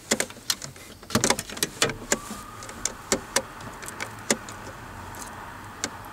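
Hands handling and opening a cigarette pack: a string of sharp, irregular clicks and crackles.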